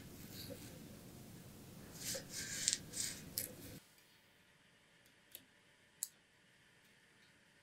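Small clicks, taps and light rubbing of hand work on bicycle parts, which cut off abruptly about four seconds in; after that, two isolated sharp clicks.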